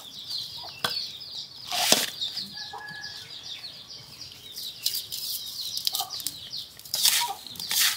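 Hands mixing salted small fish with roasted rice powder in a bowl: scattered rustling and scraping handling noises, the sharpest about two seconds in, over continuous rapid high-pitched chirping in the background.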